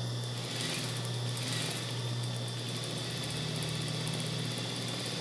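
Industrial straight-stitch sewing machine running, stitching a topstitch in a fast, steady run of stitches over the constant hum of its motor. The stitching stops near the end while the motor hum goes on.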